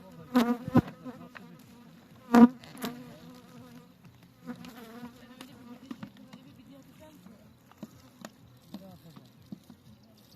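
Honeybees buzzing around the hives: a steady hum, with single bees flying close past and swelling loud about half a second and two and a half seconds in. Scattered light clicks and taps are heard over the buzz.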